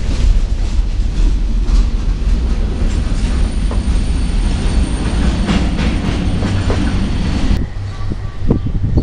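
Freight train covered hopper cars rolling past, a heavy low rumble with the wheels clacking over the rail joints. The rumble carries on after the last car has gone by, then cuts off abruptly near the end to quieter outdoor background.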